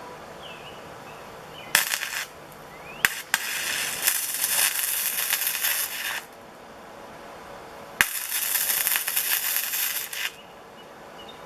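MIG welder arc crackling on thin 20–22 gauge sheet metal, with the inductance set to −10 for a softer arc. It comes in several runs: two brief ones near the start, then two longer runs of two to three seconds each with a pause between.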